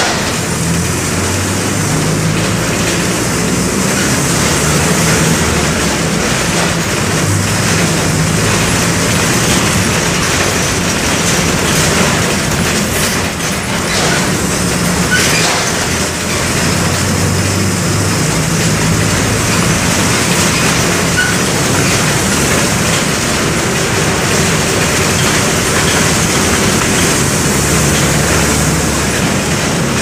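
Mercedes-Benz OF-1722M bus's OM-924 LA four-cylinder inline turbodiesel running under way, heard from inside the Apache Vip II coach body. The engine note rises and drops several times over a steady haze of road noise.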